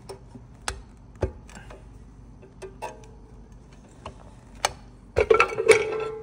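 Sharp clicks and taps of a heat press's sheet-metal cover panel being worked loose by hand, then a louder clatter with a brief metallic ring about five seconds in.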